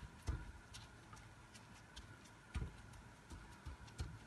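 Faint crackling and ticking of shredded kunafa dough pressed down into a pan by a plastic-gloved hand, with three soft thumps as the hand presses.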